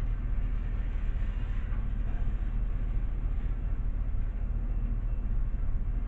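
Freight train cars rolling past with a steady low rumble.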